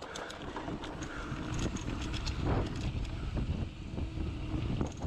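Mountain bike rolling fast on a dirt singletrack: wind rushing over the microphone and tyres rumbling on the dirt, with scattered small clicks and rattles from the bike.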